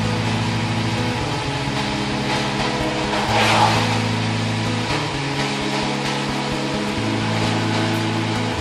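Car engine and wet-road tyre noise heard from inside a moving car's cabin, with a brief louder hiss a little over three seconds in.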